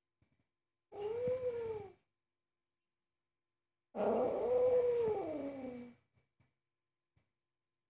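Domestic cat giving two drawn-out angry yowls: a one-second call, then a longer two-second one that slides down in pitch at the end.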